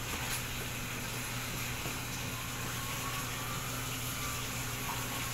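Steady low hum with an even hiss over it, from a running household appliance such as a fan; nothing starts or stops.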